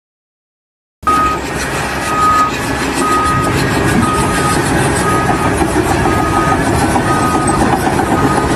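A heavy vehicle's engine running with its reversing alarm beeping about once a second, starting abruptly about a second in.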